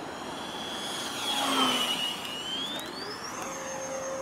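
The 70mm electric ducted fan of an RC Yak-130 jet whining as the plane flies a slow pass. The sound is loudest as the jet goes by about a second and a half in, with the pitch dipping a little. The whine then rises in pitch and holds steady as the fan speeds up.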